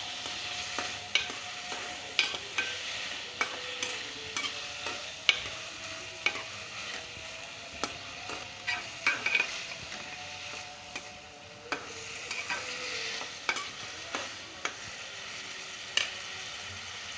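Sliced onions and tomatoes sizzling in ghee in a metal pot, stirred with a slotted metal spatula that scrapes and clicks against the pan at irregular moments over a steady frying hiss.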